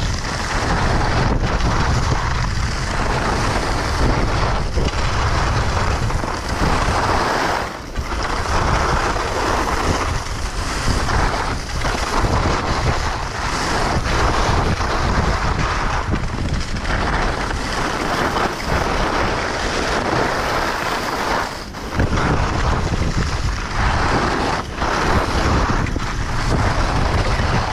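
Heavy wind buffeting a chest-mounted GoPro's microphone during a fast ski descent, with skis rushing over the snow; it swells and eases, with a couple of brief lulls.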